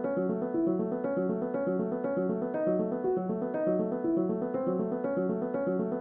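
Background music: a piano-led track playing a steady run of evenly repeating notes.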